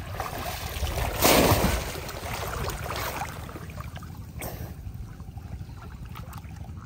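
Pond water splashing and sloshing as a person wades and moves through it chest-deep, with one loud splash about a second in and a smaller one past the middle.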